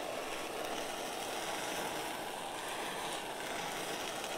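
Handheld kitchen torch burning with a steady rushing hiss, its flame held against the side of a steak to sear it.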